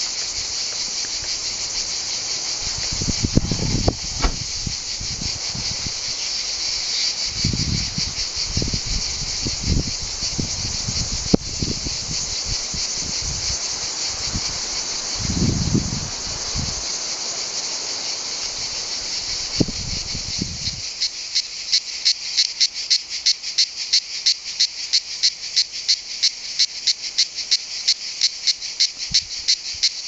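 Cicada orni cicadas singing: a dense, continuous high buzz that, about two thirds of the way in, changes to a rapid, even series of pulses, about five a second. Low thuds and rumbles come and go beneath the buzz before the change.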